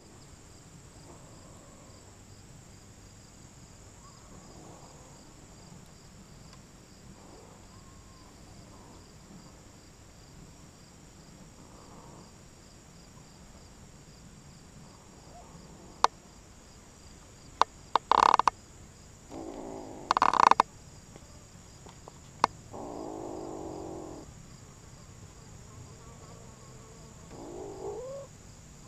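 Kitten eating close to the microphone: faint low sounds at first, then in the second half scattered sharp clicks and several short noisy bursts, and a short rising call near the end. A steady high hiss runs underneath.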